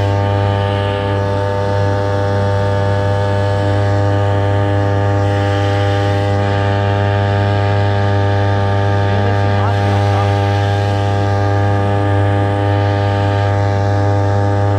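Electric motor driving a fishing kayak, humming steadily at one pitch.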